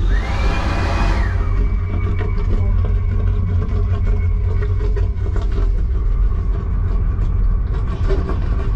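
Steady low rumble of the Renfe S-102 (Talgo 350) high-speed train running at speed, with small rattles. In the first second a hand dryer in the washbasin unit blows briefly, its whine rising and then falling away.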